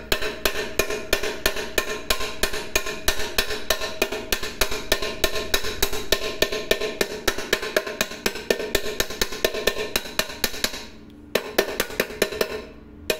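A hand tool tapping rapidly on a rivet, about five blows a second, heading it over to fix a reinforced handle on a milk pot, with a metallic ring under the blows. The tapping stops briefly about eleven seconds in, then resumes for a short run.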